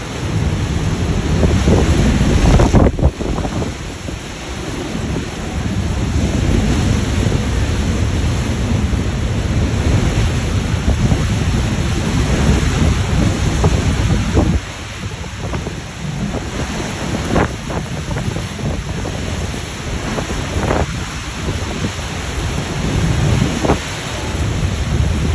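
Hurricane wind gusting hard against the microphone as a deep, rough rumble, with heavy rain hissing and surf beneath. The strongest gust comes about three seconds in, and the wind eases a little about halfway through.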